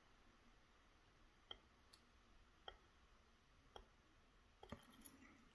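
Faint, scattered clicks of a lock pick working the pins inside a Schlage Primus lock cylinder, about half a dozen at irregular intervals with a few bunched together near the end.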